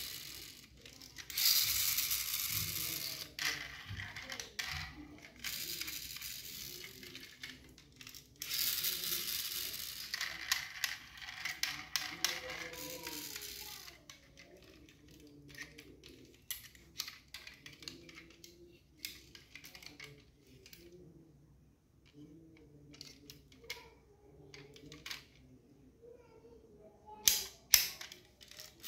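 Hands handling a small diecast model truck: rubbing and scraping noise in stretches, then scattered light clicks and taps of fingers and metal, with two louder clicks near the end.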